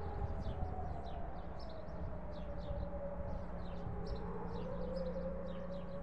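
Civil defence sirens sounding across the city: one long steady wail whose pitch sags slightly and climbs back about four to five seconds in. Short high chirps repeat over it a few times a second, with a low rumble underneath.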